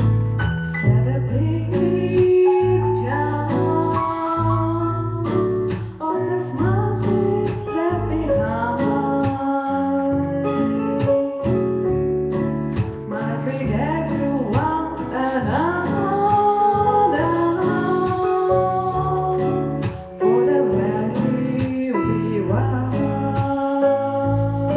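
A woman singing into a handheld microphone, accompanied by piano.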